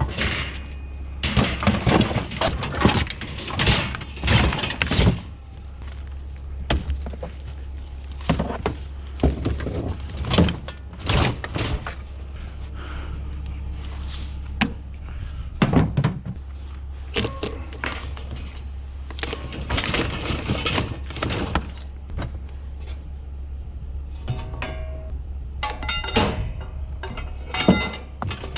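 Scrap and junk being handled and moved about: repeated thunks, knocks and clatter, some close together, over a steady low hum.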